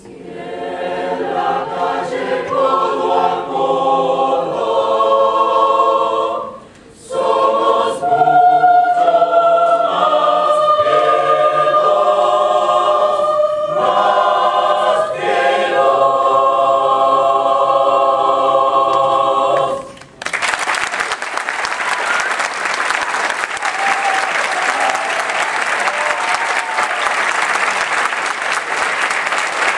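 Mixed choir singing a cappella in sustained chords, with a short break about seven seconds in; the final chord cuts off about twenty seconds in and the audience breaks into applause.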